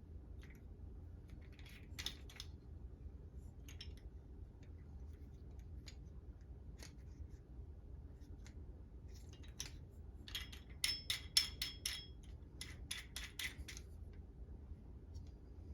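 Small plastic and metal parts of a replacement toilet tank lever being handled and fitted to the tank, giving scattered light clicks. About ten seconds in comes a quick run of five or six sharp clicks that ring briefly, and soon after a second quick run, over a low steady hum.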